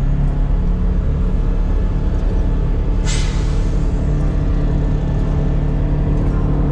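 Vehicle running on the road, a steady low engine hum and road noise, with one short sharp hiss about three seconds in that fades within half a second.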